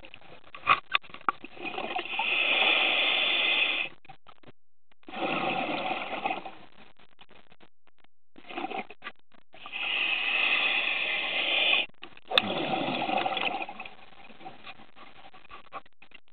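Scuba diver breathing through a regulator underwater: two breath cycles, each a longer rush of exhaled bubbles and a shorter hiss, with quiet gaps between them. A few sharp clicks about a second in.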